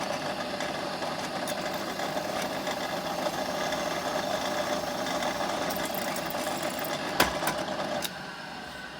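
Electric drill running steadily with a 3 mm bit, boring a pilot hole in a metal strut, then stopping about eight seconds in.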